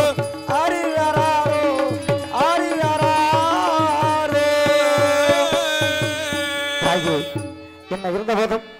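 Tamil folk-drama song: a voice singing long, ornamented phrases over a steady held drone, with a regular beat of hand-drum strokes from tabla. The music stops about seven seconds in, and speech begins near the end.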